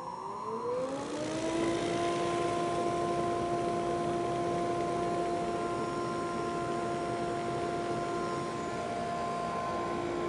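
SuperMax 19-38 combo brush/drum sander's head motor spinning up, a rising whine that levels off about two seconds in, then running steadily with a hiss as a seal-coated raised-panel door feeds through under its flap-sander head for a light scuff sanding.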